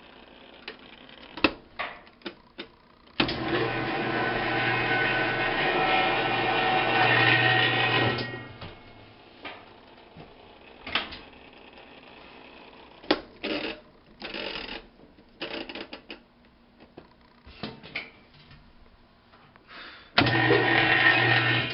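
Washing machine with a newly replaced transmission and clutch running under its motor: a steady humming run for about five seconds, then a second shorter run near the end, with scattered clicks and knocks in between.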